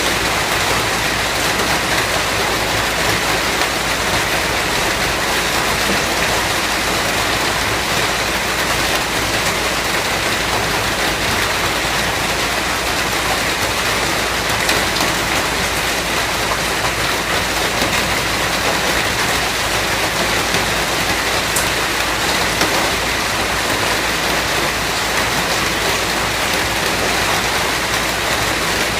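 Steady, fairly loud rain falling.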